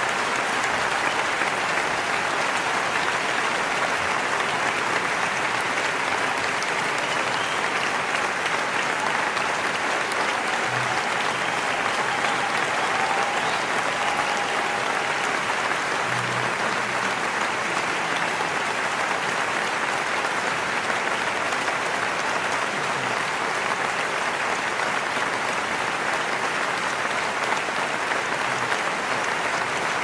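Audience applauding steadily, many hands clapping together in a dense, even wash that keeps the same level throughout.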